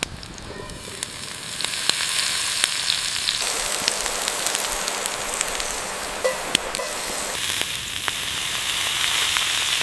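Food sizzling in hot fat on a hot cooking stone, a steady hiss with many sharp pops and crackles. It gets louder about two seconds in and changes character abruptly twice.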